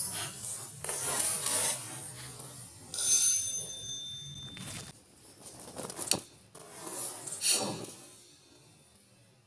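Rabbit lure towed at speed by a lure-training machine's line, rasping and rubbing over dry grass in several rushing passes with a few sharp ticks.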